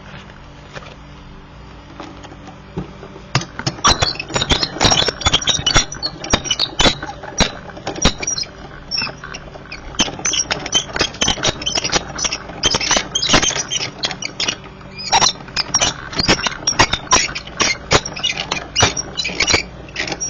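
Die-cutting machine pressing a cutting die and thick cardstock through its rollers: a dense run of crackles and clicks starting about three seconds in, easing off briefly in the middle, then a second pass.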